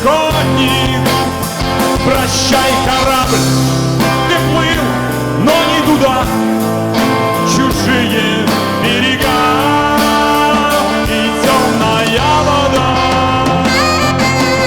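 Rock band playing live: an instrumental passage closing the song, with a melodic lead line over sustained chords and bass.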